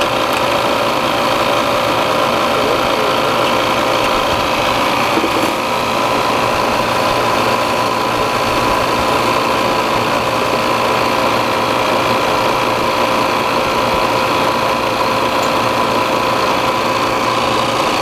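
Refrigerant recovery machine running steadily, its compressor pulling refrigerant out of an air-conditioning system, with a constant hum and whine. The recovery is in progress and the system pressure is dropping.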